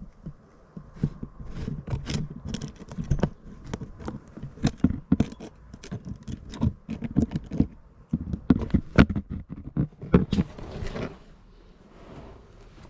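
Irregular clicking, tapping and knocking of hands handling small hard parts at close range, ending in a short scrape about ten seconds in, after which it goes quieter.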